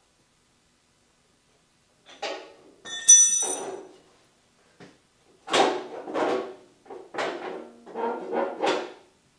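A sharp metal clink that rings briefly about three seconds in, then a run of knocks and rattles as a garden tractor's fender body panel is worked and bumped into place over the hydraulic hoses.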